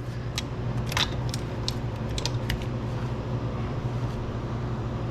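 Scattered sharp clicks and light metallic knocks from hand-tool work at the rear wheel bolts of a Honda Goldwing, coming at irregular intervals over a steady low hum.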